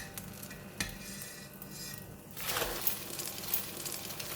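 Spatulas clinking and scraping against a frying pan as an egg omelette is turned over, then the omelette sizzling in hot oil from about two and a half seconds in.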